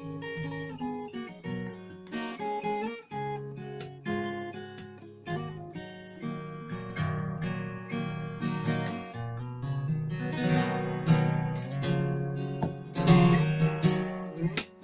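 Yamaha classical guitar strung with steel strings, played fingerstyle: a picked melody over bass notes, growing fuller and louder with chords about two-thirds of the way through.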